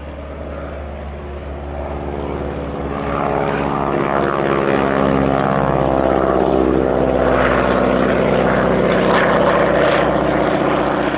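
Noorduyn Harvard IIB's Pratt & Whitney R-1340 Wasp radial engine and propeller at full takeoff power, as the trainer runs along the grass and lifts off. It grows louder over the first few seconds, then holds a steady, loud drone.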